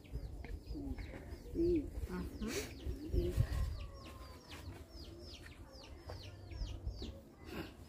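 Birds chirping: quick, repeated high notes that fall in pitch, several a second, with a few lower calls among them.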